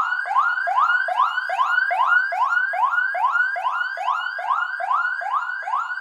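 Electronic police siren sounding a fast tone: rapid rising sweeps that repeat about two and a half times a second, loud and steady.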